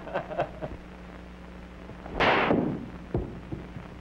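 A baseball striking a pane of shatterproof plate glass: one loud crash about two seconds in, the glass cracking but not shattering, followed by a short knock about a second later.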